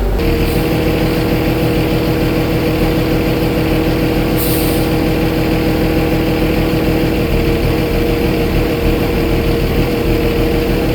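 Old Taylor forklift engine running steadily, with a steady whine over the engine note and a short hiss about four and a half seconds in.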